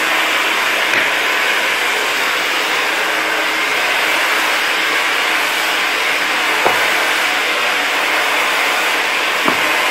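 Steady, even whooshing hiss like a fan or blower running, with two or three faint knocks, the second and third in the latter part.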